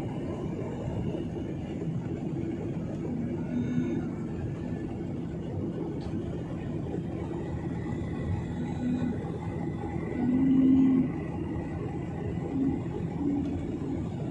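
Steady cabin drone of a jet airliner in cruise: the engines and rushing airflow heard from inside the passenger cabin, a constant low rumble. A few short low tones rise briefly above it, the plainest about ten seconds in.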